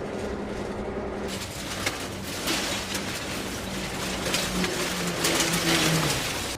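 A rescue vehicle's engine hums steadily, joined about a second in by a loud rushing noise with scattered clicks.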